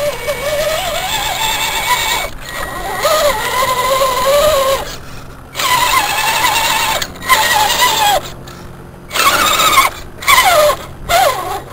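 Scale RC crawler's electric motor and gearbox whining under load as the truck churns through mud, the pitch wavering up and down as the throttle is worked. It runs steadily for the first five seconds or so, then comes in short bursts that stop abruptly.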